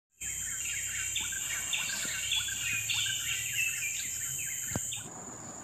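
Outdoor tropical soundscape: many small birds chirping over a steady, high-pitched insect drone. The birdsong cuts off suddenly about five seconds in while the insect drone carries on.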